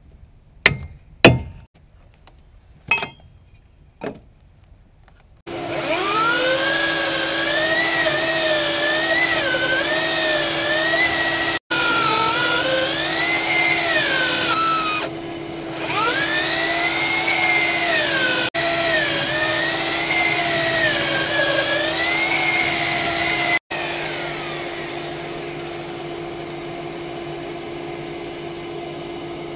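A few knocks and taps of tools being handled, then a heavy electric drill with a long auger bit boring a peg hole down into a log, its motor pitch rising and falling as the bit loads up and frees. Near the end the drill stops and a quieter steady hum carries on.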